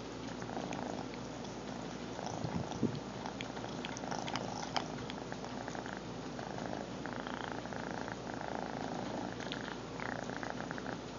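Domestic cat purring close to the microphone, the purr swelling and easing with its breathing. A few faint clicks and a light knock come about three to five seconds in.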